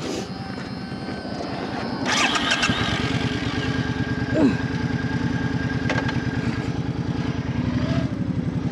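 Suzuki Boulevard C50T's V-twin engine starting about two seconds in, then idling with an even low pulse.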